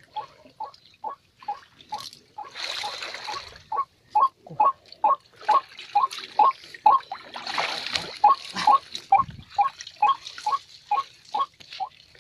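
White-breasted waterhen's 'kruwok' call, short notes repeated steadily about twice a second, with water sloshing and splashing about three seconds in and again about eight seconds in.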